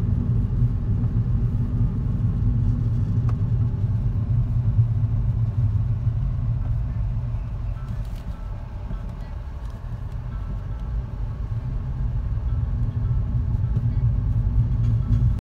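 Steady low rumble of a car's engine and tyres heard from inside the cabin while driving, easing a little about nine seconds in. It cuts off abruptly near the end.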